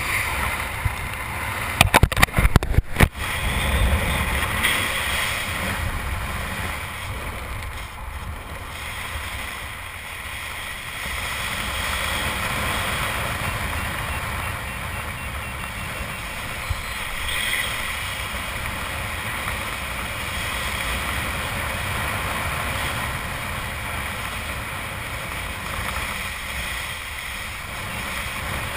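Wind rushing over a helmet-mounted camera's microphone during a descent under an open parachute canopy, a steady noisy rush that swells and eases. About two seconds in, a quick cluster of sharp knocks, the loudest sounds here.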